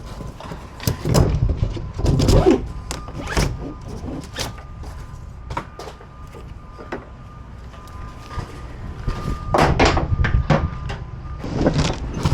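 Cargo being unloaded from a van: a string of knocks and thunks, with louder bangs about a second in, around two seconds and near ten seconds, over a low rumble and a faint steady tone.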